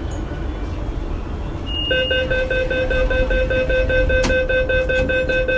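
Subway train's door-closing warning: an electronic buzzer beeping rapidly and steadily for about four seconds, starting about two seconds in, over the low rumble of the metro car.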